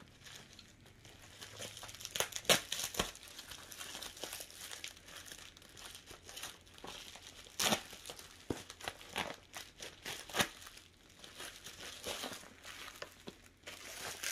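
Bubble wrap crinkling and packing tape being torn as a taped, bubble-wrapped package is pulled open, in irregular rustles with sharper crackles, the loudest about two and a half and about eight seconds in.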